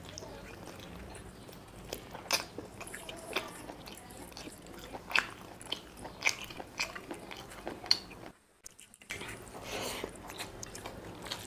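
Close-miked eating of biryani with chicken curry: chewing and rice squeezed together by hand, heard as a run of sharp wet clicks. There is a brief drop to near silence about eight seconds in.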